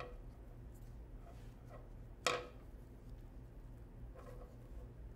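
Quiet handling noises as ribbon is worked through a dream catcher hoop's web: a few light knocks and taps, the loudest about two seconds in, some with a short ring. A steady low hum underneath.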